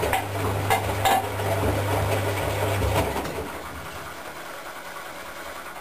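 Predom Polar Westa-85 front-loading washing machine tumbling laundry in its wash cycle: the motor hums steadily with a few light knocks from the drum, then stops about three seconds in as the drum comes to rest for the pause between tumbles.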